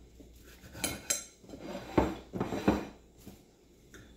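A knife cutting through a quesadilla on a dinner plate: the blade scrapes and knocks against the plate several times, loudest about two seconds in.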